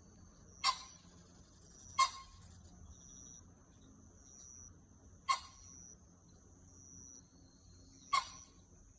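A high, steady insect trill, like a cricket's, runs throughout. Four short, sharp clicks stand out over it at uneven intervals.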